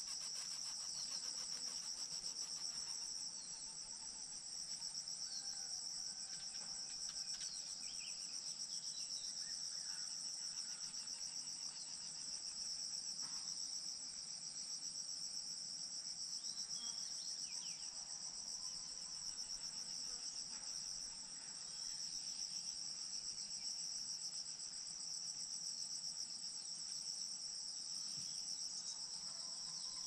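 Steady chorus of trilling insects, a continuous high-pitched buzz that holds without a break, with a few faint short chirps now and then.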